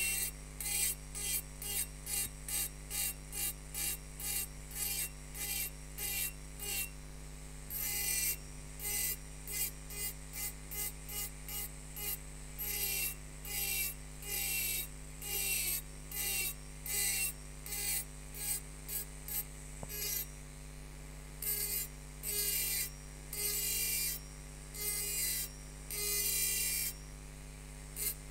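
A rotary engraving burr grinds into the glass of a wine glass as rose petals are cut, in quick short strokes about two a second at first and longer strokes of about a second near the end. The engraving tool's motor hums steadily underneath.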